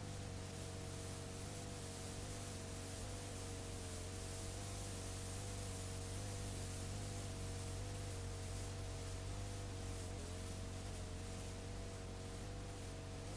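Steady hiss and low mains hum from a blank stretch of videotape being played back, with two faint tones that waver in pitch.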